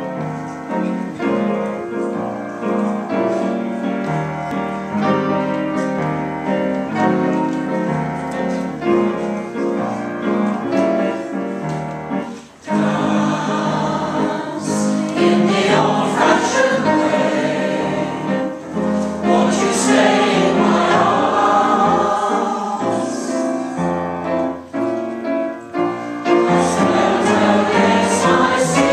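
Community choir of older men and women singing with piano accompaniment. The sound grows louder and fuller about halfway through.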